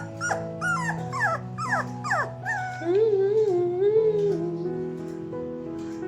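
Puppy whimpering in a run of short, quick cries, then one longer wavering howl about three seconds in, over background music with held chords.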